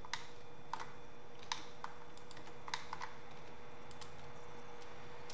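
Computer keyboard keys and mouse buttons being pressed: about ten scattered, irregular clicks, a few in quick pairs. A steady faint hum with a thin tone runs underneath.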